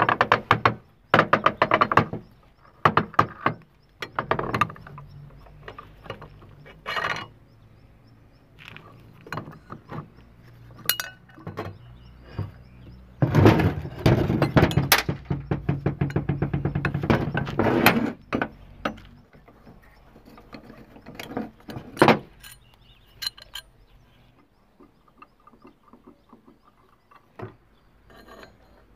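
Metal hand tools clinking and knocking on a Honda Dio scooter's aluminium crankcase as the engine is taken apart: scattered sharp taps and clinks, with a longer run of quick, even clicks in the middle, tailing off to faint sounds near the end.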